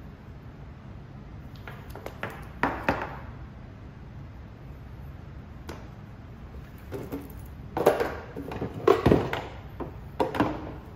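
Handling noise from a rubber power cord and a plastic electrical enclosure being picked up, turned and knocked against a hard tabletop: scattered knocks and rattles a couple of seconds in, then a busier run of them from about seven to ten seconds, the loudest around eight and nine seconds, over a low steady hum.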